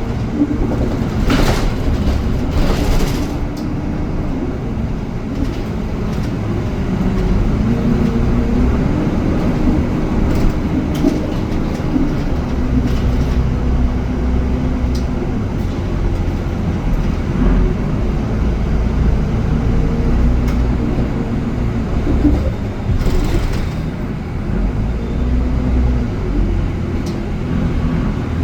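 Istanbul metrobus (articulated bus) running along its route: a steady low rumble with a faint motor whine that shifts in pitch, and scattered rattles and clicks.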